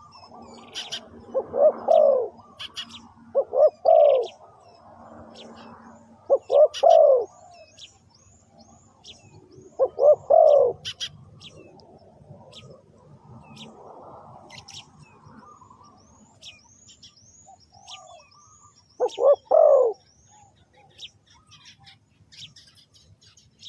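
Spotted dove cooing in short phrases, five times with gaps between them, while small birds chirp high and often in between.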